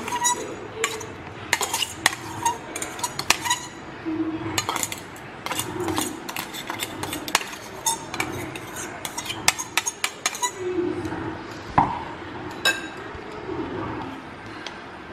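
Metal fork clinking and scraping against a glass bowl in quick, irregular clinks while mashing boiled potatoes and mixing in a filling, with one louder ringing clink near the end.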